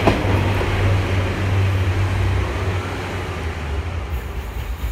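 Class 143 Pacer diesel multiple unit passing close by, its diesel engine running with a steady low drone and rail noise that slowly fade as it pulls away.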